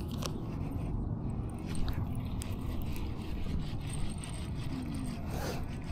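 A baitcasting reel on a light BFS rod being cranked, its gears turning with a run of small mechanical clicks.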